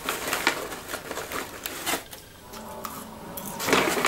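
Crackly rustling of a paper popcorn bag as a hand rummages inside it, mixed with the crunch of popcorn. It quietens about halfway through, then grows louder again near the end.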